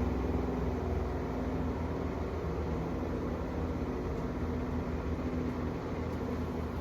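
Portable washing machine's spin dryer running with a steady low hum, spinning wet clothes, jeans among them, to throw the water out.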